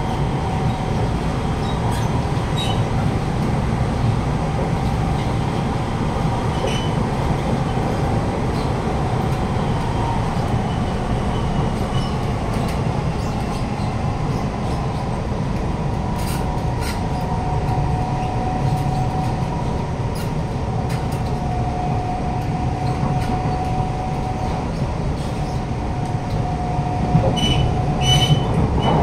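Siemens C651 metro train running at speed, heard from inside the carriage: a steady low rumble of the wheels on the rails with a whine held at a steady pitch. A few short high squeaks come near the end as the sound grows slightly louder.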